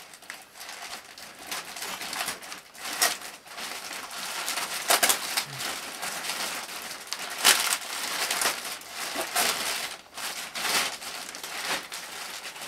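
A black plastic garbage bag crinkling and rustling in irregular bursts as it is pulled and unwrapped from a taped package, loudest about five and seven and a half seconds in.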